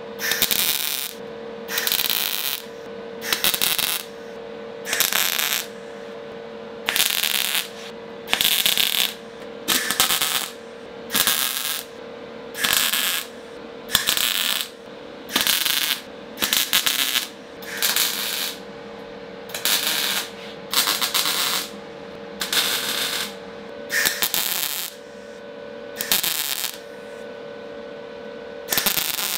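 Welding arc on a steel car fender seam, about twenty short bursts of about a second each with brief pauses between, over a steady hum. The welds are kept short and spaced out to limit heat in the panel and avoid warping it.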